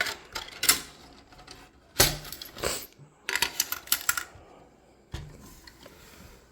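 Metal drill bits clicking and rattling as they are handled in their case. There are several sharp clicks, a run of quick rattling clicks around the middle, and one more click near the end.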